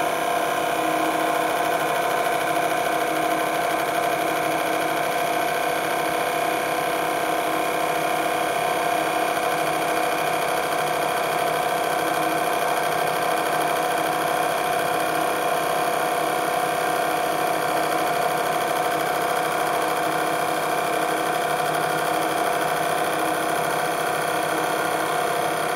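Sidewinder CNC lathe turning a long round workpiece, its spindle drive running with a steady whine while a RicoCNC cutter takes a continuous cut.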